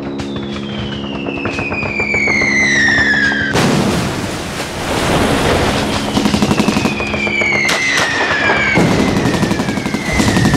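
Incoming shells whistling down in falling pitch, each ending abruptly in an explosion, twice, with a third whistle starting near the end. Rapid gunfire crackles underneath.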